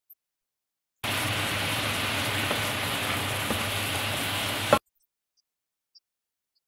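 Rhubarb pieces simmering in a pot of bubbling liquid: a steady, even bubbling hiss that starts abruptly about a second in and cuts off suddenly almost five seconds in, just after a brief knock.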